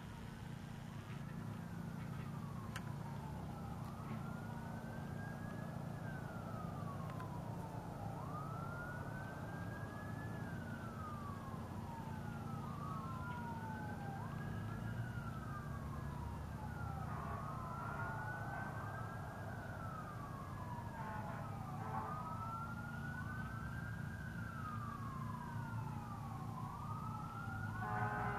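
A distant wailing siren, its pitch rising and falling about every two seconds; from about halfway through a second wail overlaps it out of step. A low steady drone runs underneath.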